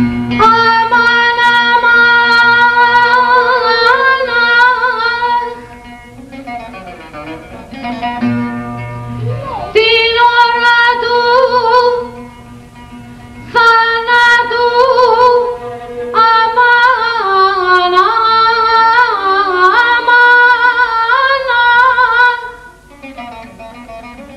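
Woman singing a slow, melismatic amanes in the Saba mode: four long held phrases full of ornamented pitch bends, with a laouto playing softly in the gaps between them.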